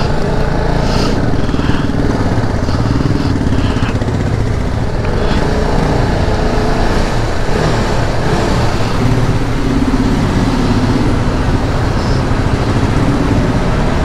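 Sport motorcycle engine running at low speed, its pitch rising and falling a little with the throttle.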